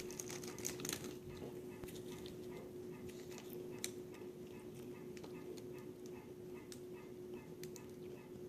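Faint scattered clicks and scratches of a tool picking decay and stuck food out of the cavity of an extracted wisdom tooth, over a faint steady hum.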